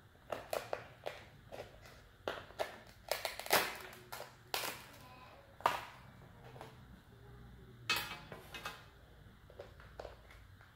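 Kitchen shears cutting through the hard shell of a king crab leg: a string of sharp, irregular cracks and snips, loudest about three and a half seconds in.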